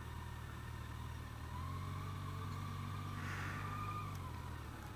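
Yamaha FJR1300 motorcycle's inline-four engine running at low speed as the bike rolls along, pulling a little harder from about a second and a half in and easing off near the end.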